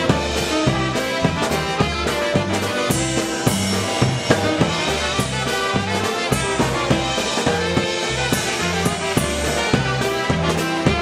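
Live polka band playing: electric bass and a squeezebox over a steady, even beat.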